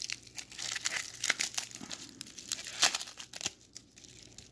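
Plastic bubble wrap crinkling and crackling as hands pull it open, with the sharpest crackle about three seconds in. It dies down near the end.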